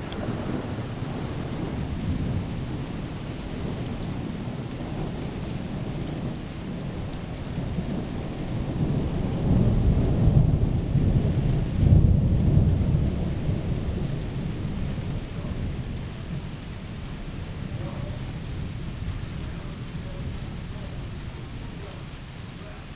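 Thunder rumbling over steady rain: a long, deep roll builds about a third of the way in, is loudest around the middle and slowly dies away.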